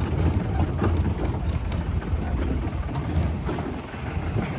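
Jeep driving over a rough off-road track: a low engine and road rumble with irregular knocks and rattles.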